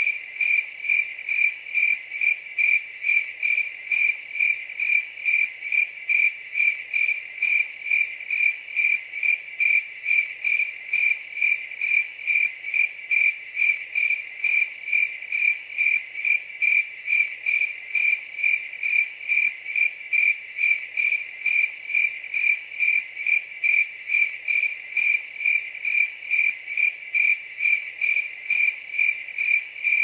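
Cricket chirping in a steady, even rhythm of two or three high-pitched chirps a second.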